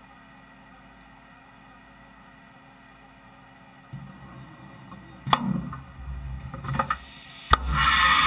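Fadal VMC5020A vertical machining center going through a tool change: a steady machine hum, then motors start running about four seconds in, followed by clanks, two sharp knocks and a loud rush of air near the end as the tool changer carousel comes in to the spindle.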